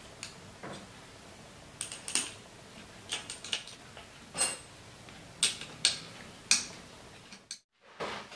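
Metal mounting clamp and bracket of an LED spotlight clicking and knocking against a scooter's handlebar stem as it is fitted by hand: a dozen or so sharp, irregular metallic clicks. The sound cuts out briefly near the end.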